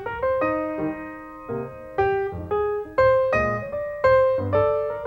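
Solo piano music: a tune played as struck notes and chords, a new note or chord about every half second, each fading away after it is struck.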